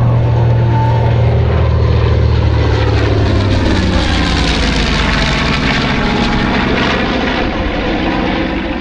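North American B-25 Mitchell (PBJ) bomber's twin radial engines droning during a low flypast. The engine pitch falls as the aircraft passes, about three to five seconds in, with the rush loudest just after.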